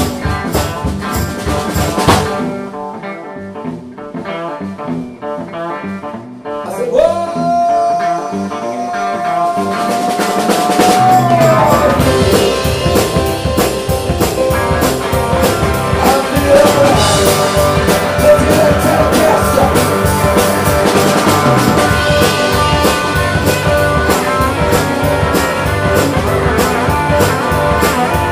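Live rock band with piano, drums, electric guitar, bass and vocals playing. A couple of seconds in, the band drops to a thinner, quieter passage with a long held note that slides down, and about twelve seconds in the full band comes back in loud with drums and cymbals.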